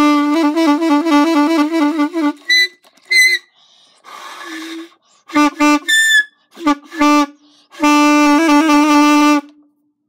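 Saxophone blown by a beginner, in uneven bursts: a low note wavering quickly between two pitches, then a couple of short high squeaks and a breathy rush of air with no note. Short honks follow, and one long held low note near the end.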